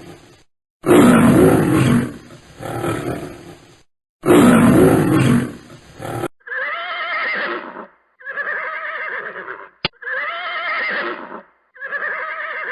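A large animal roaring, two long bouts over the first six seconds. Then a different animal's wavering, high-pitched call repeats five times with short gaps between, and a single sharp click falls about ten seconds in.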